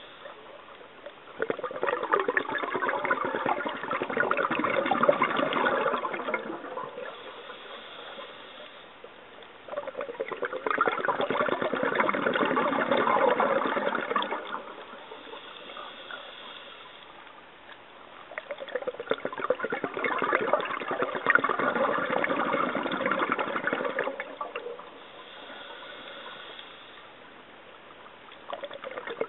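Scuba diver breathing through a regulator underwater: three long rushes of exhaled bubbles, each about five seconds long and coming about every nine seconds, with quieter gaps between them holding a faint high hiss. A fourth rush of bubbles starts at the very end.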